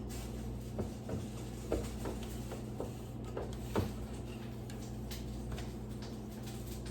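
Irregular pops from food cooking on the stove, sharp clicks a few times a second at uneven intervals, over a steady low hum.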